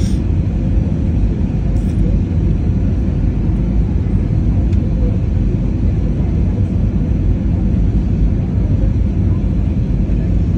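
Steady low rumble of a jet airliner's engines and rushing air, heard from inside the passenger cabin on the approach to landing.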